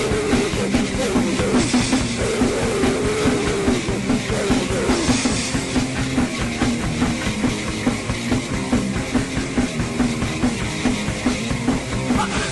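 Loud, fast rock music from an album recording: band instruments over rapid, steady drumming with no break.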